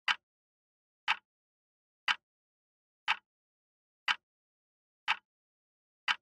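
Countdown-timer tick sound effect: a short, sharp tick once a second, seven in all, with silence between.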